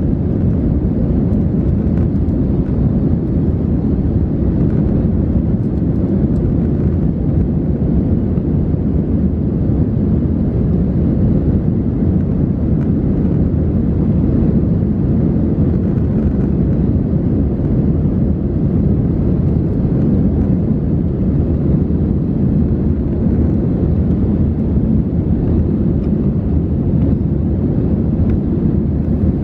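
Steady cabin noise inside an Airbus A320-214 in flight, heard from a window seat over the wing: an even, deep rumble of its CFM56 engines and the airflow past the fuselage, with no change in level.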